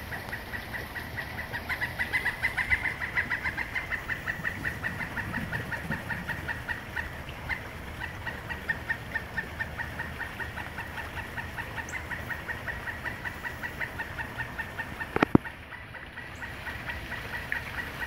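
Pileated woodpecker calling a long, even series of short, clucking notes, about six a second, loudest in the first few seconds. A single sharp knock comes near the end.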